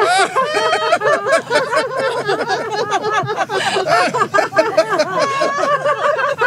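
A group of about five adults laughing together without pause, several voices overlapping: deliberate laughter-yoga laughter held on the out-breath.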